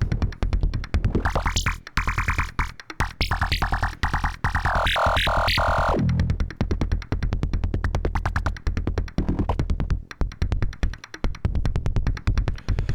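Make Noise Shared System Eurorack modular synthesizer playing a drum and bass style beat: rapid percussive hits over a steady low bass. A high synth tone rises in about a second in, stutters, then slides back down around six seconds in.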